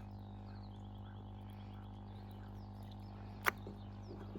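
Small birds chirping faintly over a steady low hum, with one sharp click about three and a half seconds in.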